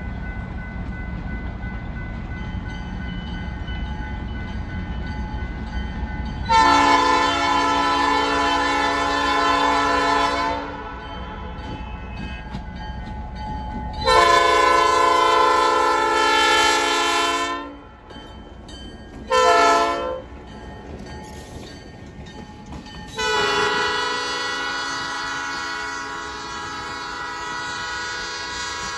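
A diesel locomotive rumbles closer, then sounds its multi-tone air horn in four blasts: long, long, short, then a long last one that trails off as the train passes. This is the long-long-short-long pattern used at grade crossings.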